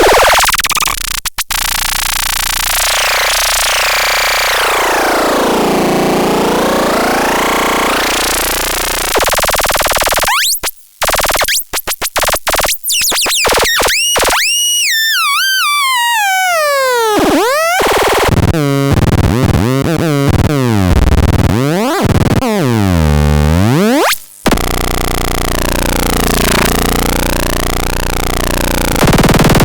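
LEBKOTRON electronic sound device making harsh, buzzing synthesizer tones that swoop down and up in pitch. About a third of the way in the sound stutters and cuts in and out, then a series of rapid rising and falling glides follows, and it ends in fast zigzagging pitch sweeps.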